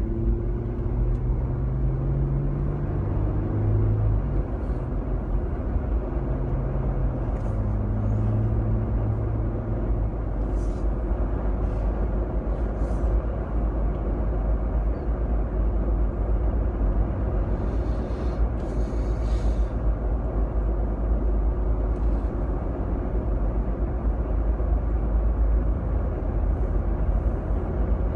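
Car driving: a steady low rumble of engine and tyre road noise, with an engine hum that steps up and down in pitch during the first ten seconds or so.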